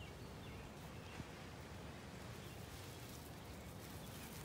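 Quiet outdoor background noise, with a single faint click about a second in.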